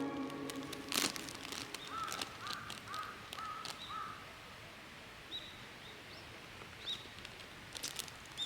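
Quiet outdoor ambience with birds calling: a run of about five short, identical calls in quick succession a couple of seconds in, then a few higher single chirps. A sharp click sounds about a second in, and a few more near the end.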